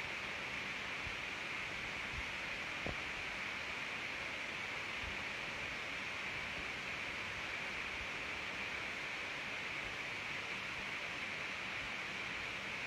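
Steady hiss of background noise with no voice, and a single faint click about three seconds in.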